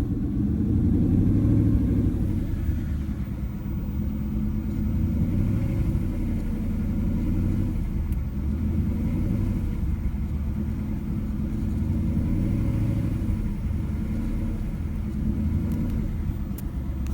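2011 Ford Mustang GT's 5.0 Coyote V8 running steadily at low revs, around 1,800 rpm, still cold, with slight rises and falls in engine speed. This cold-engine running is where the owner hears a knocking that he takes for a failing rod bearing; the dealer calls it piston slap.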